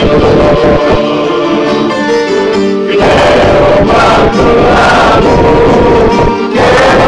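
A group of men singing a song together, accompanied by a bouzouki and an accordion. The sound grows fuller and louder about three seconds in.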